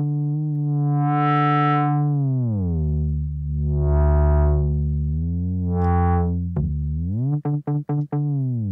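Bass synth sound from the ROLI Noise app, played on its touch-screen Seaboard keyboard: long held notes that brighten and fade three times and bend down in pitch and back up. Near the end it breaks into quick short repeated notes, about five a second, then slides down.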